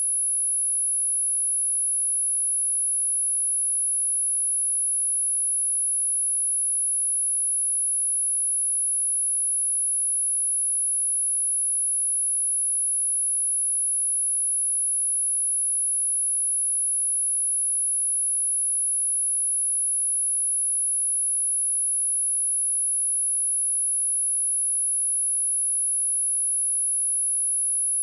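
A steady, high-pitched pure sine tone at 10557 Hz, held unchanging: a synthetic speaker test tone, of the kind played to check a speaker or to shake water and dust out of it.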